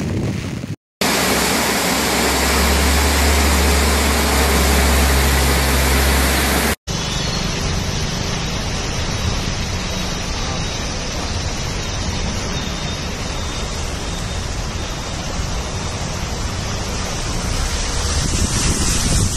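Storm noise on a phone microphone: wind buffeting with a heavy low rumble for the first few seconds, then, after an abrupt cut, a steady hiss of water and traffic on a flooded street.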